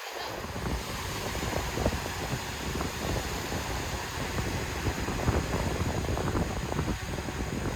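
Wind buffeting the microphone, a steady low rumble that rises and falls in gusts.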